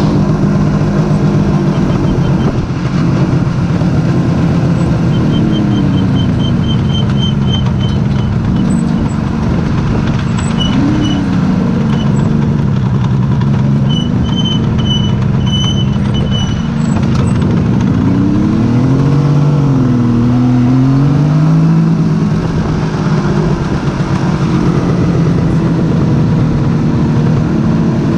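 Suzuki GT750 A's two-stroke three-cylinder engine running under way. Its pitch rises and falls several times as the bike speeds up and eases off, with the widest swings about twenty seconds in.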